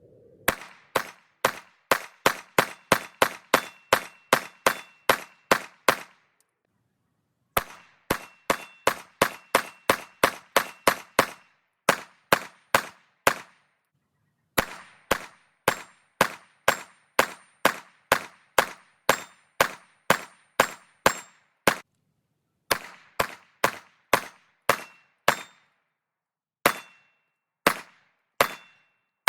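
Rapid strings of 9mm Glock pistol shots, about three a second, each a sharp crack with a short ring. The strings are separated by brief dead-silent breaks.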